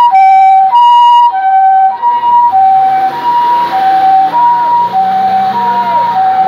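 Two-tone hi-lo ambulance siren, switching between a higher and a lower pitch about every half second. It is loud and close at first and weaker from about a second and a half in as the vehicle pulls away, with its engine rising in pitch underneath.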